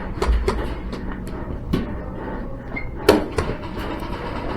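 Scattered single airsoft gun shots and sharp knocks, about seven in all at an uneven pace, the loudest about three seconds in.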